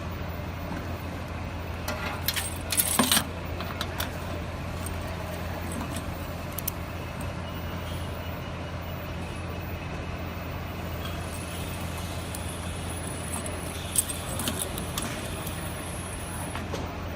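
Metal parts and tools clinking and clattering as hardware is handled, with a burst of sharp knocks about three seconds in and another single knock near fourteen seconds, over a steady low hum.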